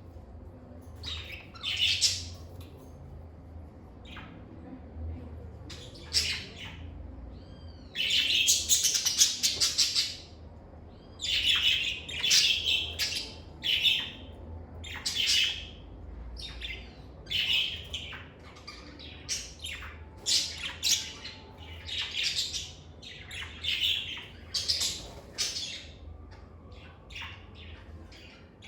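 Lovebirds chirping and squawking in a string of short, high calls every second or so, with a longer stretch of rapid chatter about eight to ten seconds in.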